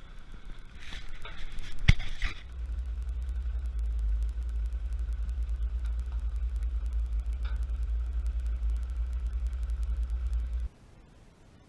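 Kubota tractor's diesel engine running as its front loader lifts a shrub out by the roots: a steady low rumble, with a sharp knock about two seconds in. The sound cuts off suddenly near the end.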